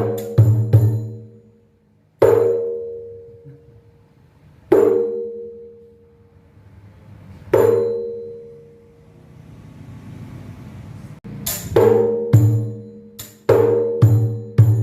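Rapai, the Acehnese frame drum, struck by hand for a sound check: single strokes a few seconds apart, each with a deep ring that dies away, then a quicker run of strokes near the end.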